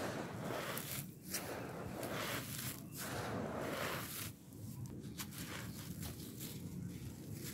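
Hands scooping loose, dry, gritty red dirt and letting it pour through the fingers: a grainy, crunchy rustle. After about four seconds it thins to sparser crackling crunches.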